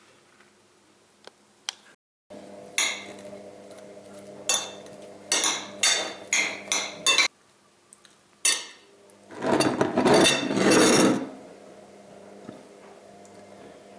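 Kitchen dishes and utensils clinking and clattering in a series of sharp knocks, then a louder rattling clatter lasting about two seconds, over a steady electrical hum.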